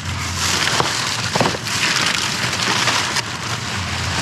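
Rustling and crackling of plastic bags and trash being handled and rummaged through, with a couple of light knocks from objects shifting.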